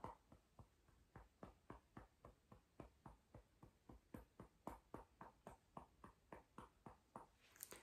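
Faint, even fingertip tapping on the side of the body under the arm, about four taps a second: the tapping of an EFT round.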